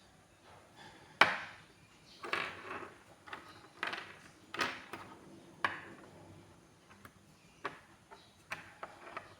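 Plastic building-block pieces being handled and snapped together: a series of sharp clicks and knocks, about eight at uneven intervals, the loudest a little over a second in, some followed by a brief scrape.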